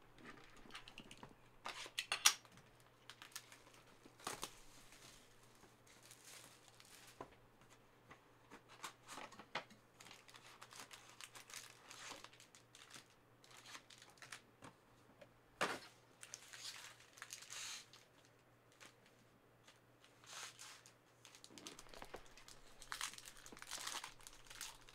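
Trading card packaging, plastic wrap and foil pack wrappers, being crinkled and torn open by hand: irregular rustling with sharp crackles, the loudest about two seconds in and again near the middle.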